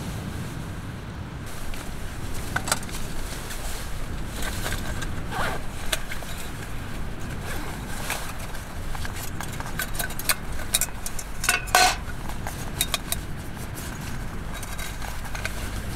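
Scattered light clinks and knocks of metal camp gear being handled, a stainless cup set on a steel-mesh table among them, with the loudest cluster about twelve seconds in. Under them, a steady low rumble of strong wind.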